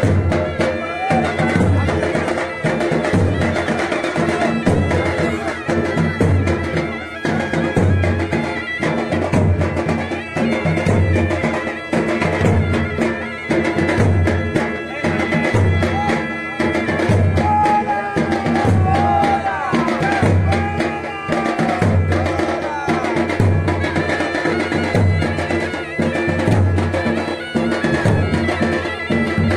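Dhol drums beating a steady heavy rhythm, a deep beat about every second and a third, with a sanai (shehnai) playing a wavering, gliding melody over it: traditional Konkan dhol-sanai music.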